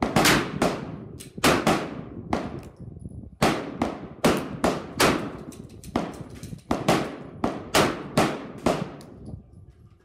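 Gunfire on a covered range: many sharp shots with ringing tails, often only half a second apart, thinning out near the end. The shots come faster than one single-action revolver can be cocked and fired, so more than one gun is firing.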